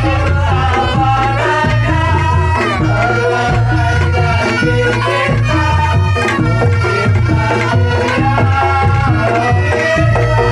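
Reog Ponorogo gamelan playing a koplo-style groove. The wavering, nasal melody comes from slompret reed pipes, over a kendang drum beat, deep gong strokes and mallet-struck bronze instruments.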